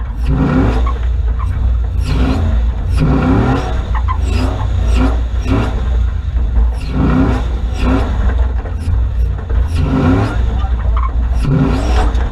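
An off-road 4WD's engine, heard from the bonnet, revving in repeated surges about every second or two over a steady deep rumble as the vehicle is driven hard along a rough, rutted track. Scattered knocks come from the vehicle jolting over the ground.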